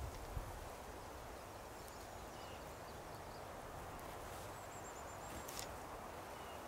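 Quiet woodland background with a faint, high, wavering songbird call about four and a half seconds in and a brief soft click shortly after.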